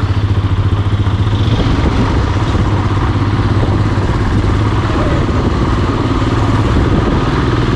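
Royal Enfield Himalayan 450 motorcycle running steadily while being ridden: an even, unbroken low engine drone.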